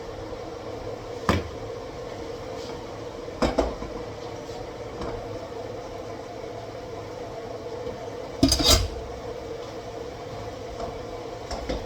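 Pots, dishes and utensils clanking in a kitchen: a few short separate knocks, the loudest a quick double clank a little past the middle, over a steady hum.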